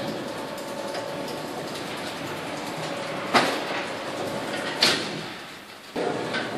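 Kardex Industriever Sys 501 paternoster storage carousel running, a steady drive and chain hum as its shelf carriers rotate past the opening, with sharp clunks about three and a half and five seconds in. The running sound fades, then comes back with a thump near the end.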